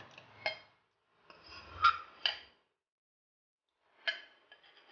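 Steel ladle scraping and clinking against a glass bowl and a steel mixer-grinder jar while scooping soaked flattened rice and semolina into the jar: about four sharp clinks with a short ring, with soft scraping between.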